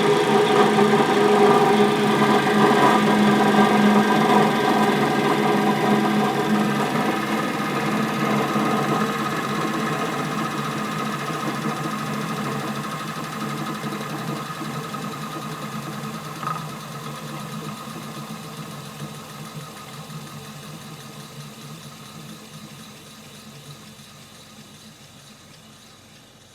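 A motor-generator set (dynamotor) that drives a lathe's DC spindle motor, coasting down after being switched off. Its steady machine hum fades gradually and is very faint by the end. There is a single light knock about sixteen seconds in.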